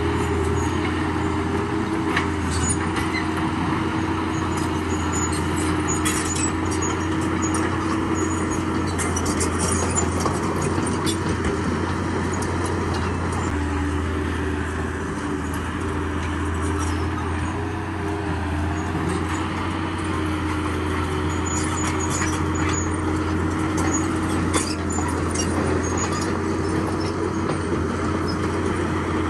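Heavy diesel engine of a bulldozer running steadily, with scattered light clinks and clatter over it.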